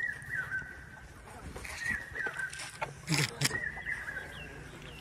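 A young elephant gives a short honking call about three seconds in, falling in pitch, over a bird that repeats a high chirping call in the background.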